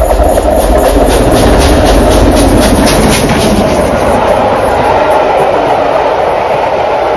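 LMS Princess Coronation Class steam locomotive 6233 Duchess of Sutherland passing close at speed with its train. A quick regular beat of about four strokes a second fades after about three seconds into the steady rumble and clatter of the coaches rolling by.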